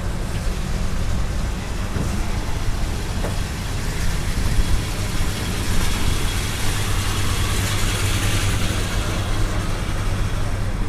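Classic car engine running steadily at low revs as a late-1950s Ford sedan rolls slowly past, with a swell of rushing noise in the middle of the pass.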